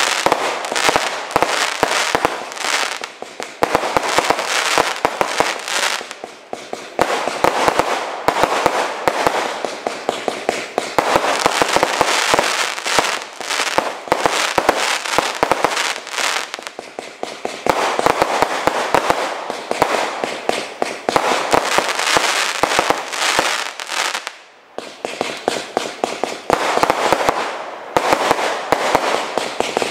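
Evolution Fireworks Quasar, a 100-shot firework cake, firing continuously: a rapid run of shots launching and bursting with a dense crackling between them, broken by a couple of short lulls.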